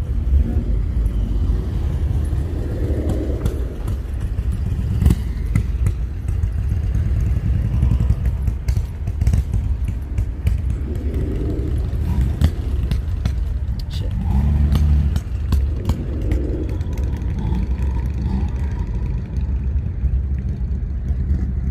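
Car engines running, a steady low rumble with occasional clicks.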